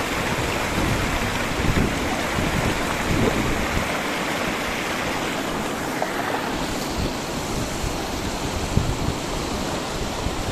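Shallow mountain river rushing over rocks and rapids close to the microphone: a steady hiss of fast-flowing water.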